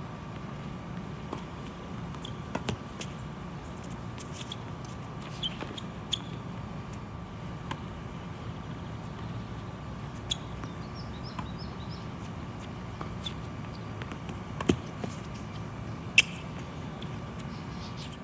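Tennis ball knocks, racket hits and bounces, on an outdoor court, coming irregularly and several seconds apart, the sharpest near the end, over a steady low background rumble.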